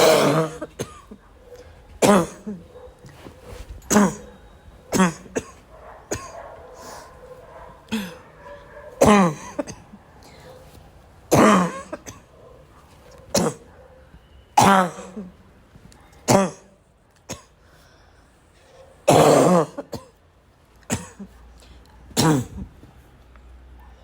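A person's harsh, barking cough in a coughing fit: about a dozen separate coughs, each a sudden loud burst, one to three seconds apart.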